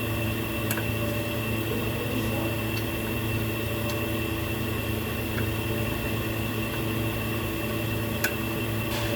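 Steady mechanical hum with a constant high whine above it, and a few light clicks, one sharper click near the end.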